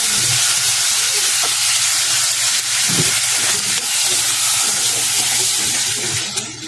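Whole shrimp sizzling in melted butter with garlic and onion in a pot, a steady frying hiss that dies down about six seconds in.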